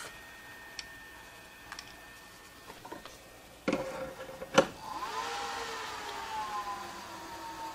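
HP ESP115 server power supply coming back on by itself after a thermal shutdown, as its heat-sensing thermistor cools. The sound comes on suddenly about three and a half seconds in, with a sharp click a second later. Then the cooling fans spin up with a whine that rises and settles to a steady pitch.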